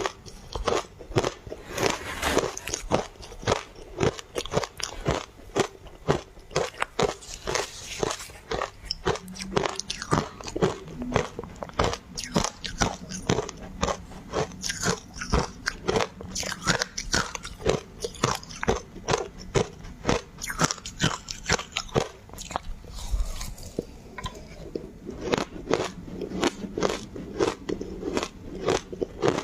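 Ice being bitten and chewed close to the microphone: a steady run of sharp, crunchy bites, several a second.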